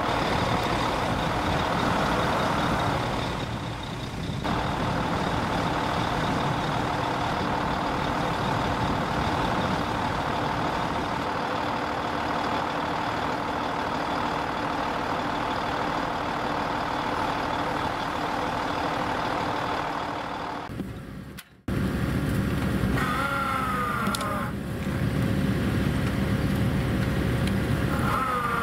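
Heavy diesel recovery machinery, tow trucks and excavators, running steadily while hoisting a sunken excavator out of the ice. The sound drops out briefly about two-thirds through, then the engines resume with two short wavering squeals.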